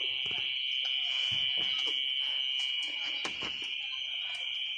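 Steady, high-pitched insect chorus, a constant buzzing drone, with a few light clicks and knocks scattered through it.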